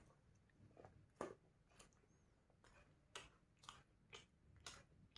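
A person chewing a mouthful of food with the mouth closed: faint, soft crunches, about two a second.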